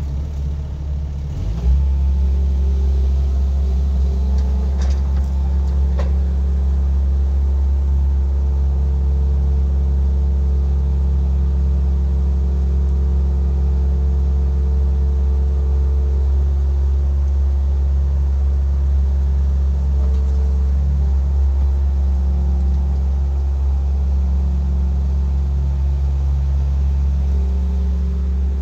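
Engine of a small red loader tractor running steadily under working load, a deep steady hum after it comes up to speed in the first couple of seconds.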